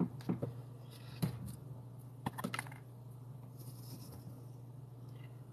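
Short sharp clicks and snips from wire cutters trimming wires, in three quick clusters over the first three seconds, with a steady low hum underneath.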